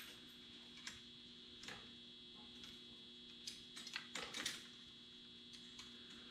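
A few light clicks and taps, clustered about three and a half to four and a half seconds in, over a faint steady hum.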